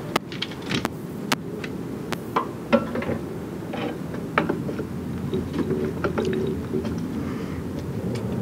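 Scattered light clicks and taps of a steel ruler and screwdriver being handled against a cylinder lawnmower's metal blades, over a steady low rumble in the background.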